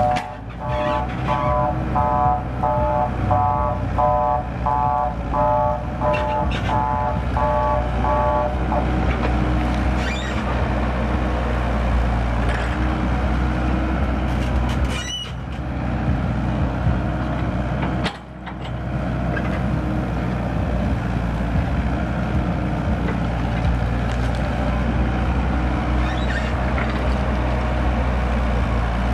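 Mini excavator's diesel engine running steadily as the machine digs. For about the first eight seconds a warning beeper sounds about twice a second, then stops; a few short knocks come later.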